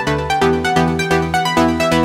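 Electronic dance music: a steady beat of about four strokes a second with synthesizer notes stepping over it.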